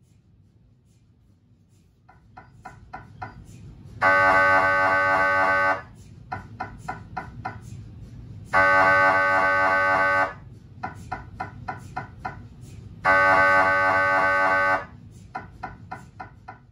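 GE Signa Excite 1.5T MRI scanner running an axial T2 FLAIR brain sequence. Starting about two seconds in, runs of quick taps alternate with loud, steady buzzing blocks about two seconds long; there are three buzzes, repeating about every four and a half seconds.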